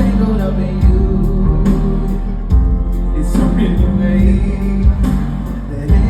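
Live pop band playing an instrumental passage of the song, with a heavy bass line and a drum beat hitting about once a second.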